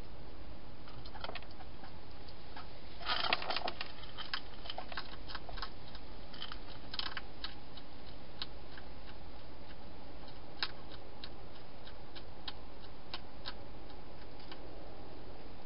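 Hedgehog chewing dry food: sharp crunching clicks, a quick flurry about three seconds in, then scattered single crunches over a steady low hiss.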